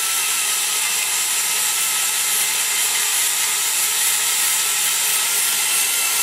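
Die grinder running steadily with a high whine over a hiss, its flame-shaped carbide burr grinding the cast-iron intake port of a small-block Chevy cylinder head; the whine wavers slightly.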